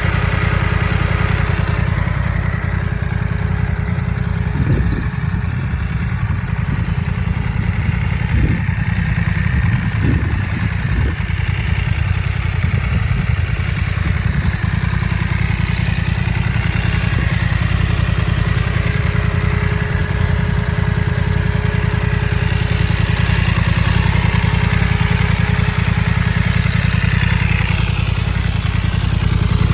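BMW F900R motorcycle's parallel-twin engine idling steadily, with a few brief blips between about five and eleven seconds in.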